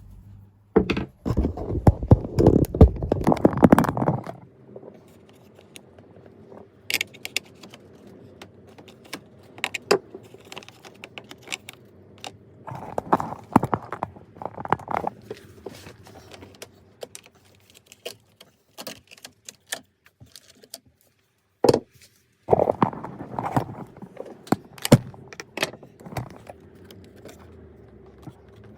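Hand tools and metal parts clattering and knocking while a tumble dryer is worked on, in three bursts with scattered sharp clicks between them.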